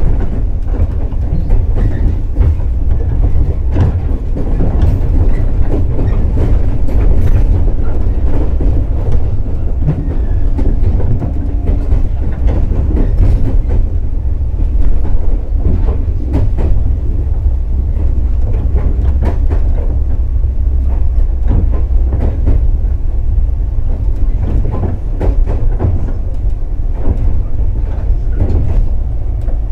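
Onboard running sound of a JR 415 series electric multiple unit: a loud, steady rumble from the wheels and running gear, with clicks as the wheels pass over rail joints.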